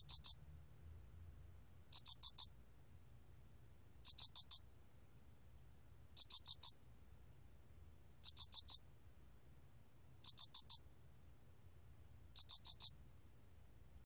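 Song of the 알락귀뚜라미 cricket (a Loxoblemmus field cricket), recorded at 24 °C: short, high chirps of three or four quick pulses each, repeated evenly about every two seconds.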